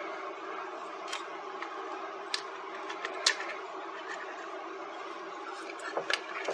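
A few sharp, isolated clicks and taps as the two halves of a small plastic radio case are handled and pulled apart, over a steady low hum.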